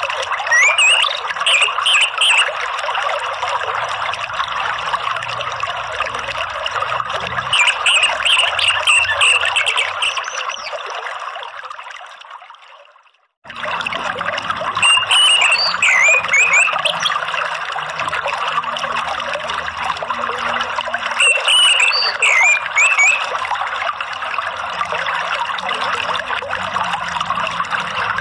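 Steady flowing, trickling water with short spells of bird chirping, rising and falling notes, about every six or seven seconds. The whole track fades out to silence about twelve seconds in and starts again a second later.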